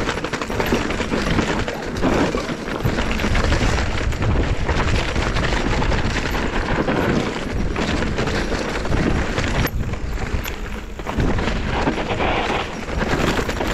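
Mountain bike descending a rough dirt singletrack, with tyres crunching over dirt and rocks and the bike and the trail tools strapped to it rattling and clattering in a fast, constant stream of knocks.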